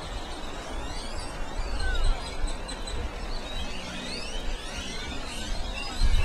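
Many birds calling at once, short chirps and rising whistles overlapping, over a steady low rumble that swells sharply near the end.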